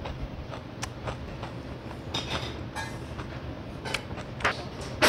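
Eating sounds: chewing, with a few sharp clicks of a spoon against a rice-cooker pot, over a low steady hum.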